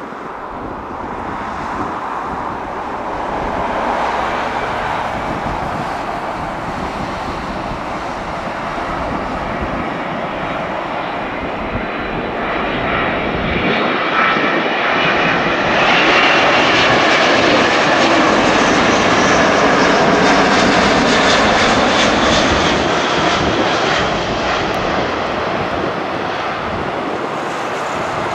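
A Boeing 777's twin jet engines on landing approach, passing low and close. The rumble builds to its loudest about two-thirds of the way through, with a high fan whine that slides down in pitch as the aircraft goes by, then eases.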